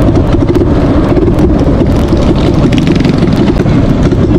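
Minibike engine running loud and close, a rapid low pulse, as the bike rides along.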